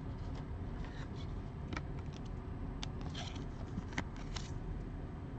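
Trading cards and their packaging being handled: soft rustles and light clicks, with one sharp click about four seconds in, over a steady low background rumble.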